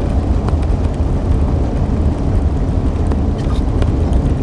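Steady low rumble of a car's road and engine noise heard from inside the cabin while driving fast, with a few faint ticks.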